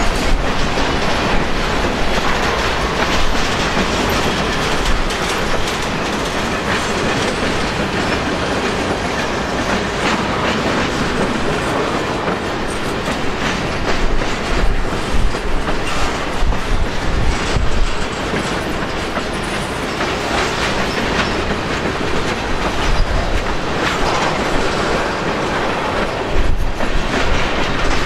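Covered hopper cars of a long freight train rolling slowly past, the wheels clicking irregularly over the rail joints. Wind buffets the microphone in gusts throughout.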